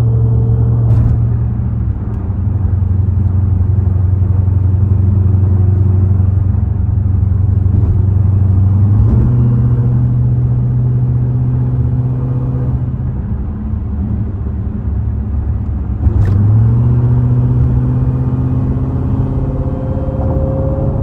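Dodge Hellcat's supercharged 6.2-litre HEMI V8 droning inside the cabin at highway speed under acceleration. Its pitch jumps up suddenly about nine seconds in and again about sixteen seconds in.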